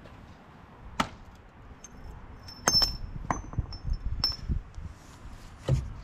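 Steel parts and tools being handled during rear-axle removal on a track loader: several separate metal clinks and knocks, some with a short high ring.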